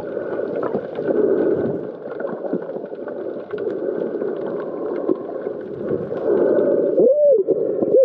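Muffled underwater water noise picked up by a GoPro camera while snorkeling, a steady gurgling wash. Near the end come a few short tones that rise and fall in pitch.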